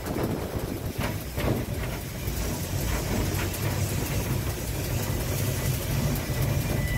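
Beyer Garratt narrow-gauge steam locomotive running, heard from inside its cab: a steady low rumble with a couple of sharp knocks about a second in.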